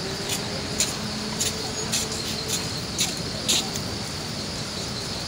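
Steady high-pitched insect buzzing, with a few short clicks scattered through the first few seconds.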